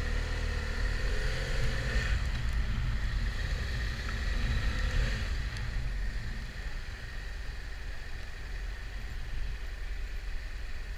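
Motorcycle engine pulling away from a standstill and accelerating, the revs rising twice as it changes up, then settling to a steadier, quieter cruise, with wind rush on the helmet-mounted microphone.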